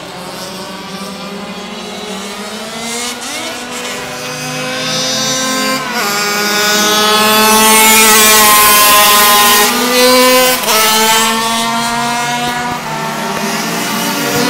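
Several racing motorcycles revving hard, their overlapping engine notes rising in pitch and growing louder as they pass close, loudest in the middle. The pitch drops sharply about six seconds in and again about ten and a half seconds in.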